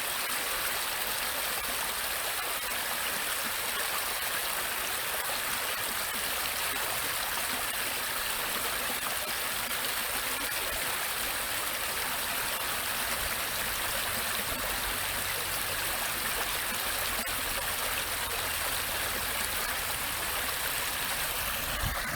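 A small stream flowing over stones, a steady rush of running water.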